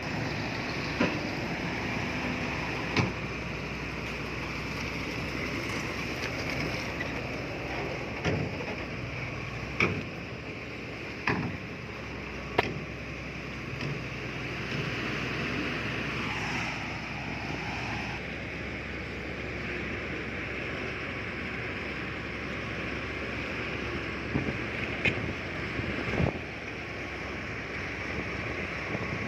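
Heavy earthmoving machinery running steadily, with about a dozen short sharp knocks scattered through, most bunched in the first half and a few near the end.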